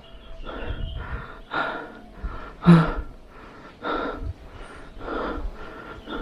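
A man breathing hard close to the microphone, with a rough breath in or out about once every second, as if winded from walking.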